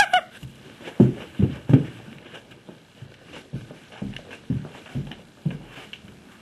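Footsteps in a small room: a run of dull thumps about half a second apart, the loudest three in the first two seconds, then softer ones that stop about a second before the end.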